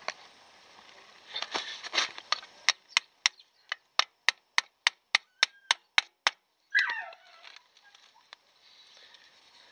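A small hammer taps the wedge of a VW Golf Mk3 rear drum brake shoe assembly, about a dozen light, evenly spaced blows at roughly three a second, after some clatter of metal parts. A short squeak falling in pitch follows near the end.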